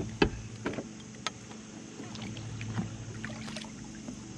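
Kayak paddle knocking a few times against the plastic hull of a fishing kayak, then light clicks and water sounds as the paddle is handled, over a steady low hum.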